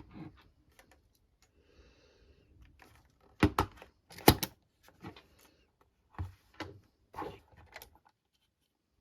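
Sharp plastic clicks and knocks from handling a Fujifilm Instax Mini 11 instant camera: two loud clicks about three and a half and four seconds in, then a run of softer knocks that stops near the end.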